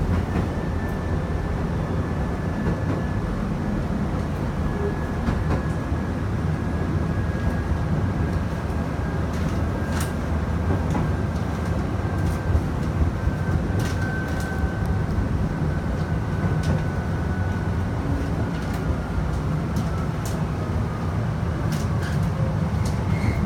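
Chichibu Railway electric train running, heard from inside the front car: a steady low rumble with scattered clicks over the rails and a faint high whine that slowly falls in pitch.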